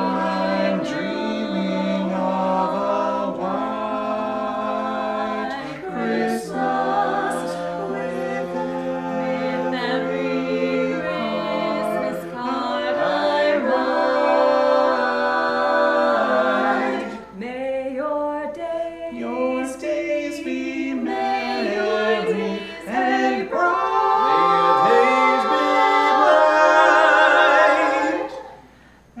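Quartet of carolers, two men and two women, singing a Christmas carol a cappella in harmony, with short breaks between phrases.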